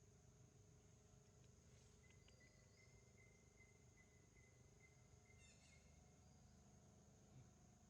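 Near silence: faint outdoor ambience with a steady high insect drone, and a faint, brief high chirping a little past halfway.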